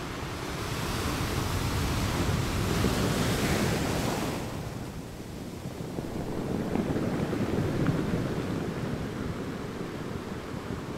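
Ocean surf: a wave washes in, building over the first few seconds and falling away about four seconds in, followed by a second, softer wave around eight seconds.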